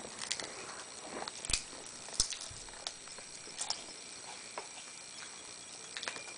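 Potato chip crunching as a toddler chews: a few sharp, scattered crackles, about one a second.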